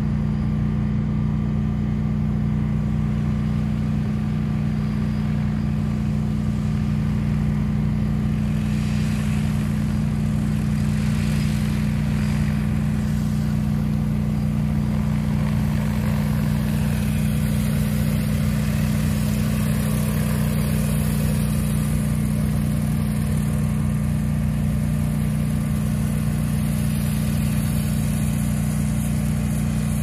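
Large multirotor agricultural drone flying over the field, its propellers giving a steady low hum. A hiss grows in from about halfway through as it comes closer.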